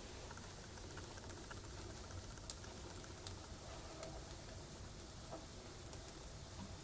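Wood fire crackling in a stove's firebox: a handful of scattered sharp pops over a faint steady low hum.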